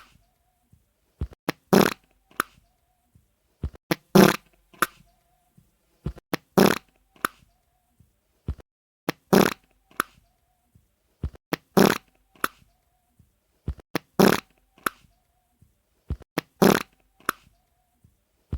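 Wet, diarrhea-style fart sound effect repeated seven times, about every two and a half seconds. Each repeat is a short pop, then a loud spluttering burst, then one or two smaller spurts.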